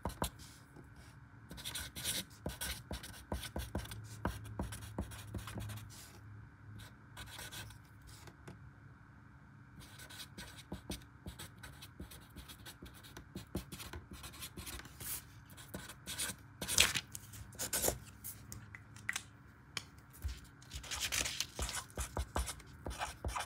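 Felt-tip marker writing on lined notebook paper: many short, irregular pen strokes with a few brief pauses between words.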